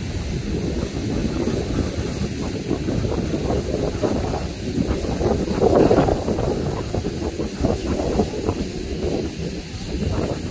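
Twin-engine jet airliner's engines running at taxi power, heard from a distance as a steady rumble and hiss that swells about six seconds in.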